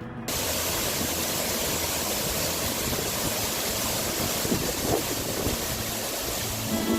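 Steady roar of a waterfall, falling water rushing and splashing, cutting in suddenly just after the start.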